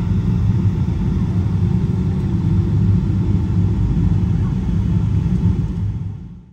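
Steady low rumble of a jet airliner taxiing, heard from inside the cabin. It fades out near the end.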